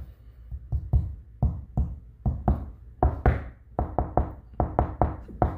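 Knuckles knocking on a dried joint-compound patch over a filled hole in drywall, a quick run of solid knocks at about four a second that come closer together toward the end, testing that the patch has set hard and sound.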